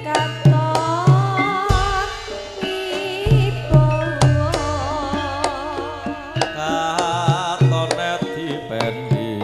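Live Javanese music. Kendang hand-drum strokes play a lively rhythm under a sung melody with a wavering vibrato.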